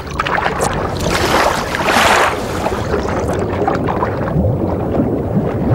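Rushing water heard underwater: a steady low rumble of flow, with a hiss that swells and fades about two seconds in.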